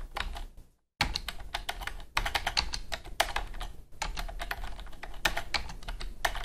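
Computer keyboard keys clicking as numbers are typed in quick runs, with short pauses between entries and a brief full stop about a second in.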